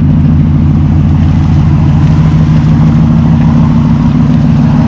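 Dodge Ram 1500 pickup's engine running at a steady speed, a low even drone with no change in pitch.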